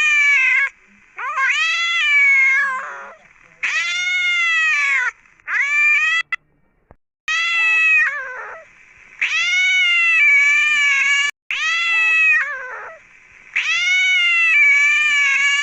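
A domestic cat meowing over and over: about eight long, drawn-out meows of one to two seconds each, falling in pitch at the end, with short gaps between. Two of the meows cut off abruptly.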